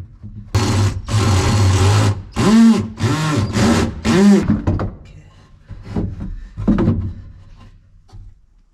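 Power drill running in bursts, one longer run then four quick trigger pulls, the motor pitch rising and falling with each, followed by a few lighter knocks and handling sounds.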